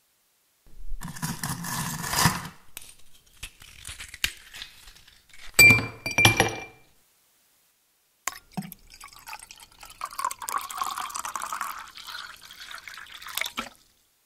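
Glassware clinking, with one loud clink about halfway through that rings briefly, between stretches of liquid being poured and splashing. Silent gaps separate the bursts.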